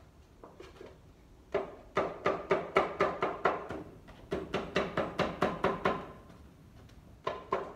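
A hand hammer tapping gasket paper against the edge of a metal part to cut out a gasket. Quick runs of light taps, about five a second, each with a short ring, come in bursts with short pauses between them.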